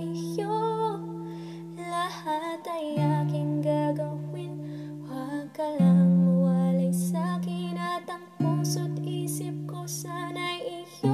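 A woman singing a slow Tagalog ballad over soft backing music, its sustained low chords changing every two to three seconds.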